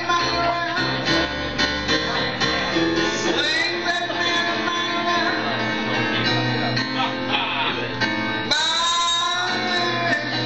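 Live band music with guitar and a singing voice, heard from among the audience in a small club.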